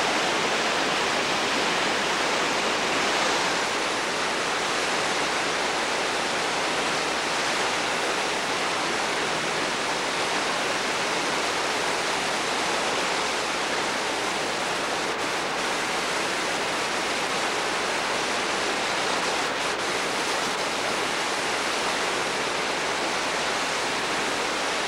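Whitewater river rapids rushing over and around boulders: a steady, even rush of water noise.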